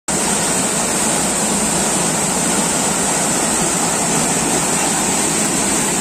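Waterfall rushing: a loud, steady noise of falling water, with a steady high hiss above it.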